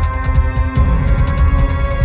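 Dark instrumental synth music with a steady drum beat, a pulsing bass and held synth tones.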